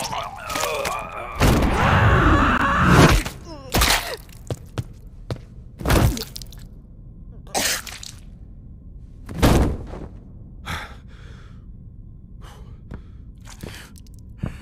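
A badly wounded man gasping and groaning in pain over gory fight sound effects for the first few seconds. Then several separate heavy thuds about two seconds apart, thinning out to quieter scattered knocks.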